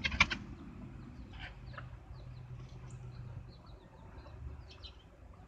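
Backyard chickens clucking softly and peeping with short, high chirps while they peck at scattered feed, after a brief sharp clatter at the very start.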